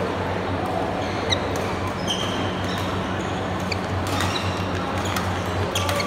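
Badminton doubles rally: sharp pops of rackets striking the shuttlecock and short squeaks of shoes on the court floor, over a steady background hum.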